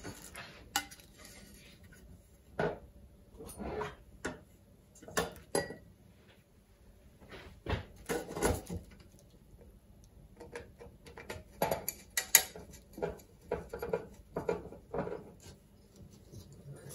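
Metal capacitor parts (fin stacks, spacers, threaded rods) and a 3D-printed plastic end disc being handled and fitted together on a wooden worktop: irregular clinks, taps and knocks, the loudest about twelve seconds in.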